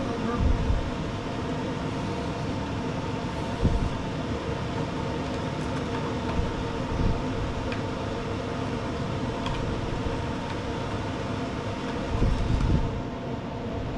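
Steady mechanical hum holding several fixed tones over a low rumble, with a few soft knocks about half a second in, near four seconds and near the end.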